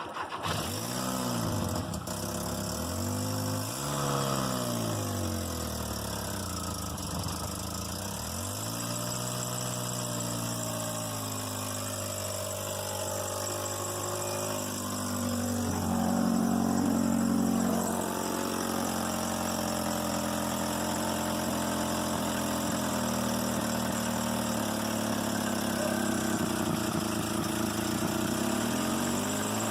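Car engine starting and being revved up and down several times over the first nine seconds, then idling roughly, with its pitch wandering.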